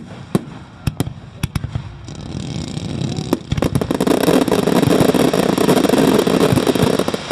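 Fireworks going off: a few single sharp bangs in the first two seconds, then a dense, rapid crackling barrage that builds from about the third second, grows loud and stops abruptly near the end.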